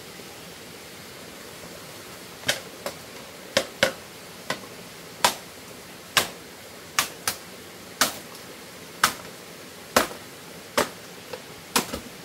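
A series of sharp strikes, about fifteen at uneven intervals of roughly half a second to a second, starting about two seconds in, over a steady hiss.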